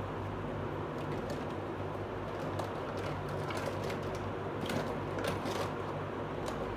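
Steady low hum and hiss, with scattered faint light clicks and taps, most of them around the middle of the stretch.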